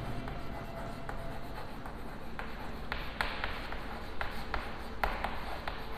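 Chalk writing on a blackboard: a string of light taps and short scratches as each letter is written. The strokes come more often in the second half.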